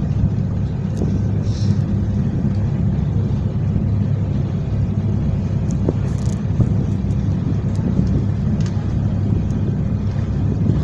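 Fast motorboat under way: a steady low engine drone mixed with the rush of its wake water.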